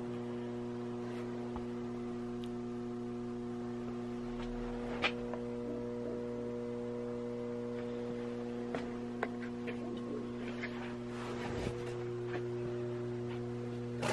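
Steady electrical mains hum, a low buzz with higher overtones, with a few faint clicks and knocks.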